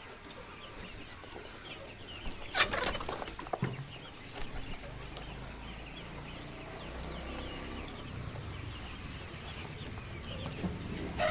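A large flock of chickens, laying hens in an egg farm, clucking and chattering continuously, with a brief louder burst about two and a half seconds in.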